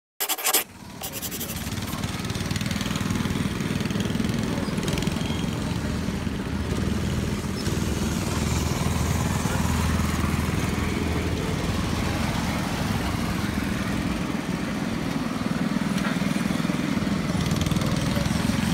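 Small go-kart engines running steadily as karts drive around the track, a continuous low engine drone. A brief sharp sound comes just after the start, before the drone sets in.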